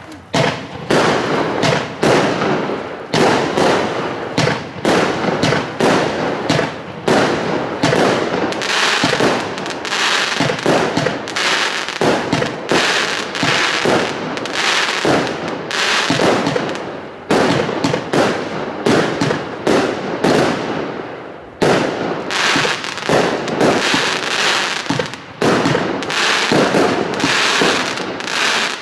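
A 0.8-inch consumer fireworks cake firing shot after shot in rapid succession: the thump of each tube launching and the bangs and crackle of the bursting shells, which include crackling cracker effects. The barrage dips briefly twice in the second half.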